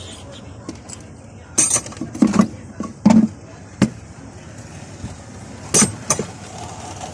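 Metal clanks and clinks of hand tools and parts against a Suzuki engine being dismantled to reach its seized crankshaft: about six sharp knocks spread irregularly over several seconds.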